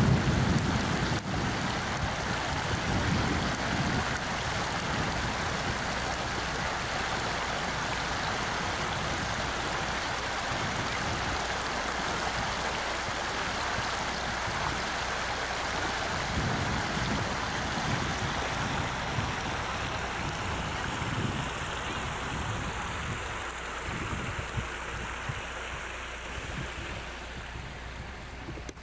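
Steady rush of a shallow river running over stones, with gusts of wind buffeting the microphone.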